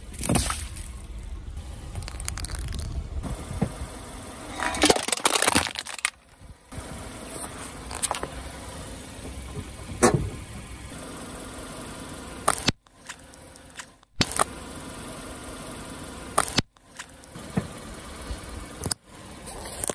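A car's engine runs as the car rolls slowly over a series of small objects, with about seven sharp cracks and pops as they are crushed under a tyre. The sound cuts off abruptly several times.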